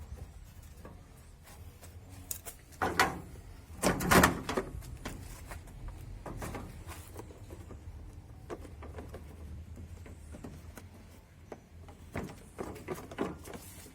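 Knocks and clatter of washing-machine parts being handled and pulled loose during disassembly, loudest twice about three and four seconds in and again in a cluster near the end.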